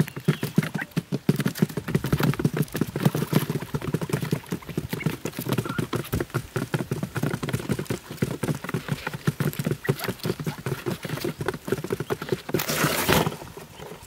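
Quail pecking at grain on a cardboard sheet, a dense, irregular run of quick taps. Near the end comes a brief rushing, rustling noise as the cardboard-box trap collapses into the hole.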